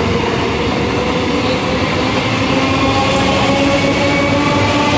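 Electric multiple unit suburban train running along the platform, its coaches rolling past with a steady loud rumble of wheels on rail. Over it the traction motors whine, the whine slowly rising in pitch as the train gathers speed.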